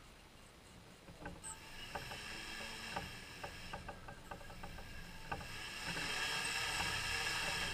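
Brushless motors on a Tarot FY690S hexacopter ticking and stuttering irregularly, then a steady high whine from them about six seconds in. This is the sign of a motor/ESC fault.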